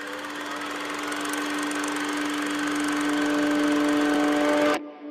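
Jeep Compass engine running as the SUV approaches, a steady hum that grows steadily louder, then cuts off abruptly near the end.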